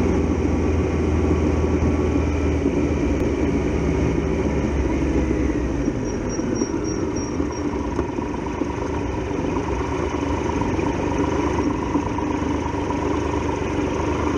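Triumph Tiger Explorer XRx motorcycle engine running under steady wind rush while the bike rides and slows to a stop; its deepest hum drops away about six seconds in.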